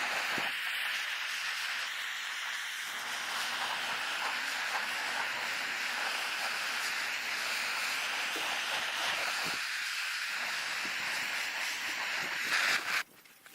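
Gas torch burning with a steady hiss as it scorches the surface of a pine wood slab, with faint crackles. It cuts off near the end.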